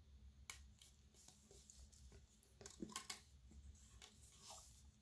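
Faint handling of plastic bendy drinking straws: scattered soft clicks and rustles, a small cluster about three seconds in, as straw ends are squeezed into one another and a bent straw is picked up off a tile floor. A low steady hum sits underneath.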